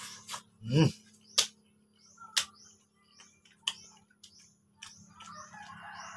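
Close-up eating sounds of a man eating rice and noodles with his fingers: wet lip smacks and mouth clicks about once a second, with a louder slurp just under a second in. An electric fan hums steadily underneath.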